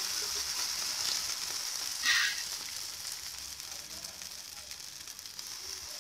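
Quinoa tortilla batter sizzling in a hot, lightly oiled frying pan as it is spooned in, a steady hiss that fades a little towards the end. A brief louder burst comes about two seconds in.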